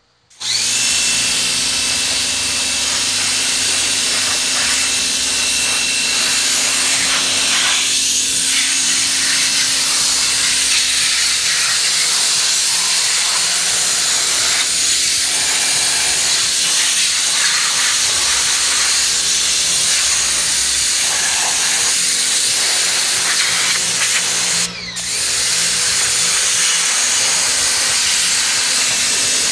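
Pressure washer jet spraying water over a Baja 5b RC buggy's chassis: a loud, steady hiss with a steady hum underneath. The spray cuts off briefly about 25 seconds in, then starts again.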